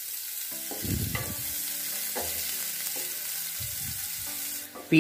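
Chopped onions sizzling in hot oil with cumin seeds in a nonstick kadhai, stirred with a spatula that gives a few soft knocks against the pan. The sizzle drops away just before the end.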